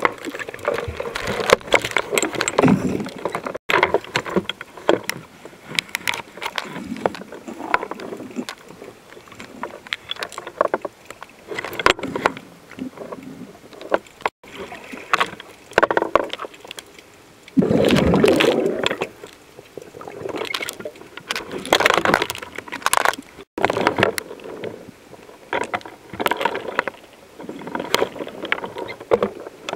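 Water gurgling and swishing around a camera held just below the sea surface, in irregular splashy bursts, with one longer, louder gush about eighteen seconds in.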